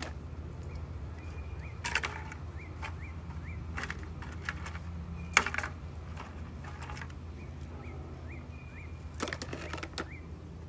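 A puppy nosing and pawing at a shallow metal tray on concrete: a few sharp clicks and light clatters, the loudest about halfway through, over a steady low hum, with short bird chirps in the background.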